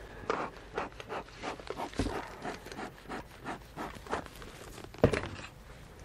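Wooden beehive parts being worked with a hive tool: a run of irregular scrapes and clicks, with heavier wooden knocks about two seconds in and about five seconds in, as the cover is pried loose and lifted off the honey super.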